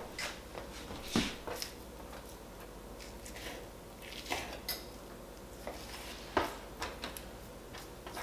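Kitchen knife knocking and clicking on a cutting board as raw steak is cut into cubes, in scattered irregular strokes; the loudest knocks come about a second in and about six seconds in.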